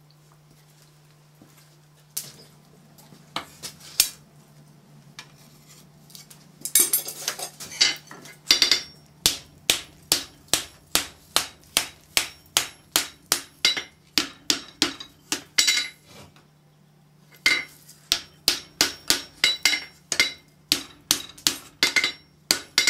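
Blacksmith's hand hammer striking red-hot flat bar steel on an anvil while rolling it into a cone. A few scattered blows come first, then steady blows about two a second, broken by a short pause about two-thirds of the way through.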